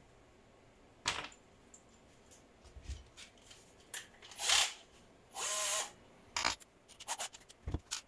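Workshop handling sounds: scattered clicks and knocks of tools and parts being set down and worked, with a short half-second whirring burst of a small power tool about five and a half seconds in.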